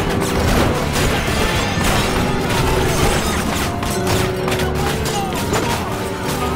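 Film music playing under a dense run of sharp hits and crashes.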